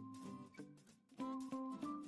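Background music with held notes, dipping briefly about a second in.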